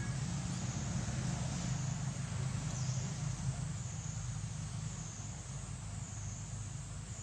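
Steady outdoor ambience: a constant low rumble with a high, wavering hiss above it.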